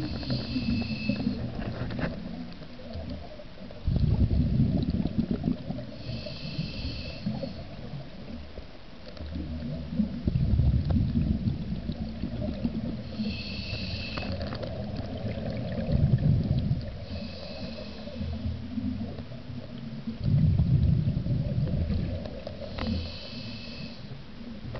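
Scuba diver breathing through a regulator underwater: each inhalation a short high whistle from the demand valve, each exhalation a burst of rumbling bubbles, repeating about every six seconds.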